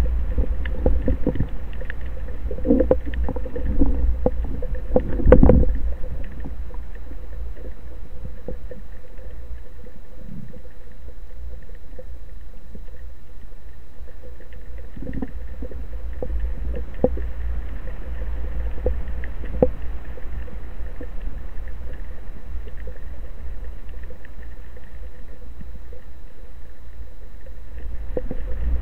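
Underwater ambience picked up through a camera housing: a steady low rumble of water moving past it, with scattered clicks and knocks that are busier in the first few seconds.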